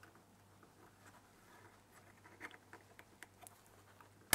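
Faint handling sounds of small metal rings and gauge glass being fitted together by hand on a paper-covered bench: scattered light clicks and taps, with one sharper click near the end.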